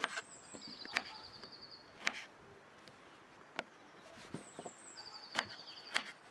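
Chef's knife cutting pineapple into cubes on a wooden cutting board: a sharp knock of the blade on the board every second or so. Faint bird chirping in the background.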